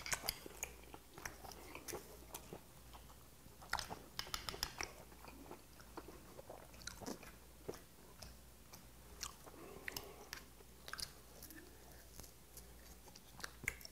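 Close-up chewing of boiled white whelk meat, with scattered small clicks as a pick and the shells are handled to draw the meat out.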